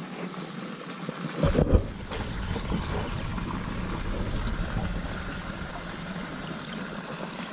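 Water running and swirling in a plastic bait tank, a steady watery hiss, joined about a second and a half in by a low steady rumble.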